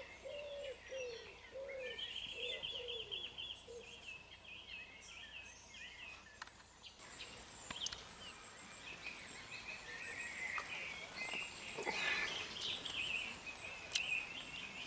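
Birds calling and singing: a run of about eight short, low, arching notes over the first few seconds, with higher chirps and trills through the rest.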